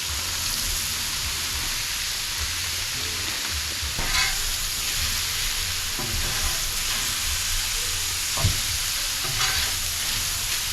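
Chicken, shrimp, onions and broccoli sizzling steadily in oil on a Blackstone flat-top griddle, with a few short scrapes and taps of metal spatulas on the griddle.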